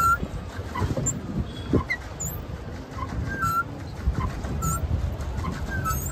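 Birds chirping: short, irregularly spaced whistled calls with quick pitch slides, over a low steady rumble.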